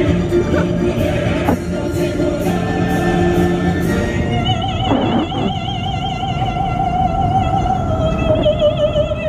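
Operatic singing over music, ending in a long high note with a wide vibrato held from about four seconds in.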